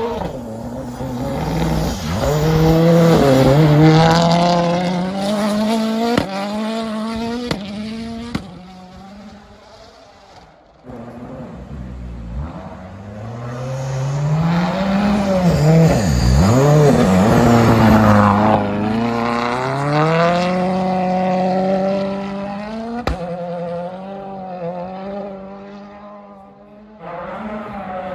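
Ford Fiesta WRC rally car's turbocharged four-cylinder engine at full throttle through snowy bends. The pitch climbs and drops sharply with each gear change, with several sharp cracks. The car passes twice, and the sound cuts abruptly about ten seconds in.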